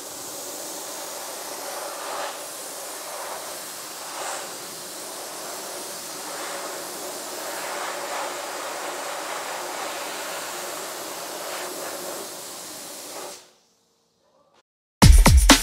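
Cold Jet MicroClean dry ice blaster nozzle blasting with a steady hiss of air and ice pellets, cutting off suddenly about thirteen seconds in. After a short silence, loud electronic drum-and-bass music starts near the end.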